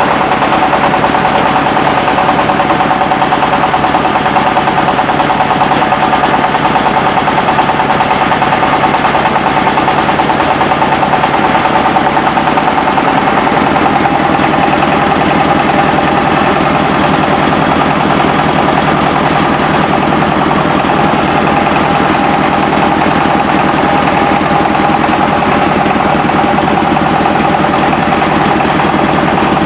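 Mobile engine-driven rice milling machine running steadily, a loud fast even chatter with a steady whine over it.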